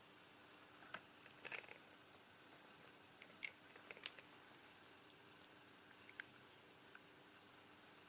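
Near silence: room tone with a few faint, short clicks and taps scattered through it, in small clusters about a second in and about three and a half seconds in, and once more near six seconds.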